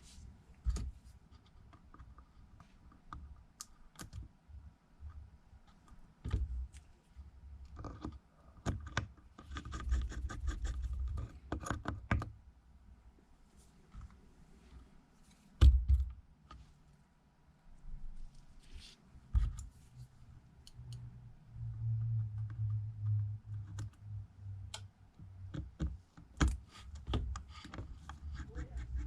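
Small clicks, taps and scrapes of a precision screwdriver, tiny screws and tablet parts being handled on a workbench, with one louder knock about sixteen seconds in.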